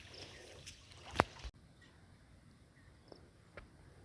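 Quiet background with one sharp click about a second in and a couple of faint ticks later on.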